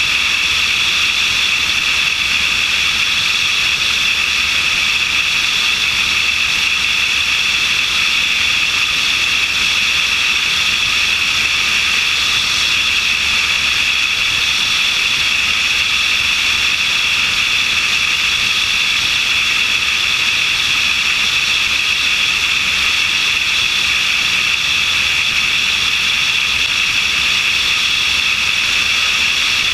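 Steady hissing rush of airflow and engine noise from a small airplane in level flight, picked up by a camera mounted out on the wing.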